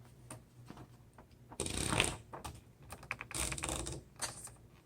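Paper being loaded into a 1972 Webster XL-747 portable typewriter (made by Brother): scattered small mechanical clicks and two longer rustling, sliding sounds, about a second and a half in and again near the end, as the sheet is fed in and rolled around the platen.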